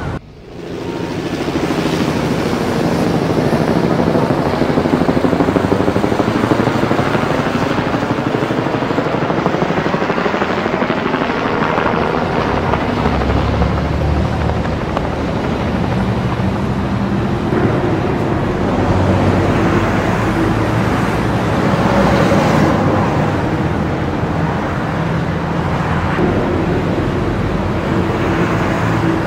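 Loud, steady engine and road noise from a convoy of race team cars driving past. Some engine pitches glide in the first few seconds as cars go by.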